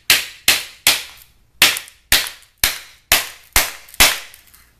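Hammer blows smashing a plastic AC adapter housing on a concrete floor to crack it open: about nine sharp, loud strikes, roughly two a second, each with a short ringing fade.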